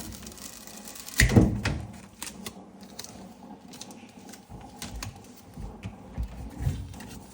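A single heavy knock about a second in, followed by scattered lighter clicks and low thumps: handling noises of objects being moved and set down.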